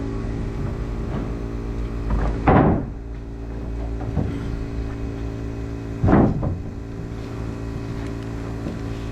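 Air compressor running steadily, with two loud pneumatic nail gun shots, each followed by a short hiss of exhaust air: one about two and a half seconds in, another about six seconds in.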